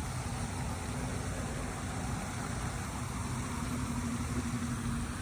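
Steady outdoor background rumble with a faint, steady hum.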